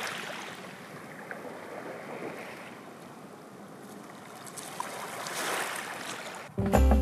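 Small waves washing over a pebble shore, a steady wash that swells a little about five seconds in. Music cuts in just before the end.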